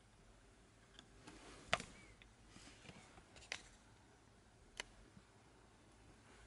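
A few faint, sharp clicks of small plastic and metal parts in an open airsoft electric gun gearbox, three of them louder than the rest, as the piston is pushed against the sector gear while setting the angle of engagement.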